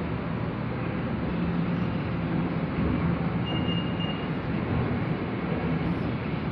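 LRT-2 light-rail train heard from inside the passenger car while running along the track: steady rolling noise with a low steady hum, and a brief faint high tone about three and a half seconds in.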